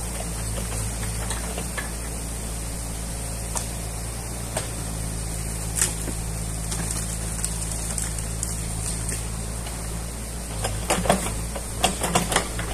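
Excavator's diesel engine running steadily, heard from inside the cab, with scattered clicks and a quick cluster of knocks and clatter near the end.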